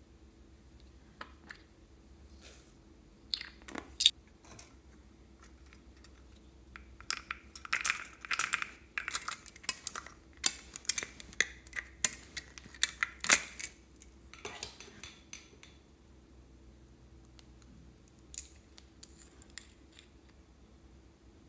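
Hands handling small plastic containers and a plastic capsule ball with a small metal coil spring toy inside: scattered clicks and taps, with a dense run of clicking and light rattling in the middle.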